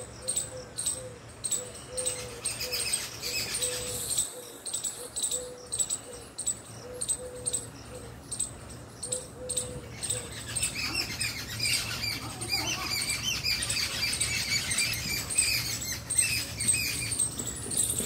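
Small birds chirping outdoors, their short high calls growing busier about halfway through. Over the first half a low note repeats steadily, with faint high ticks.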